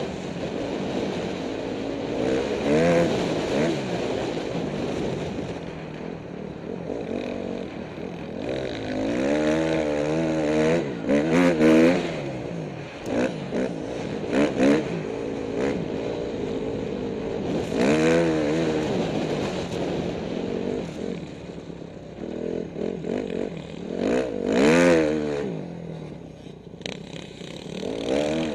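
Dirt bike engine heard close up from on the bike, revving up and dropping back again and again as it is ridden through corners and straights.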